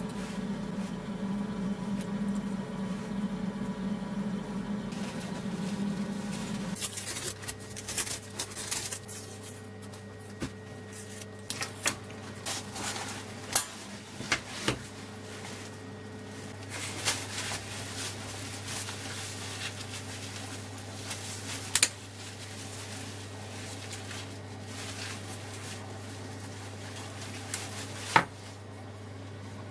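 Handling noise of an umbrella and its wooden handle being fitted and turned over on a wooden desk: scattered clicks and knocks, a few sharper ones standing out, over a steady low hum that drops lower about seven seconds in.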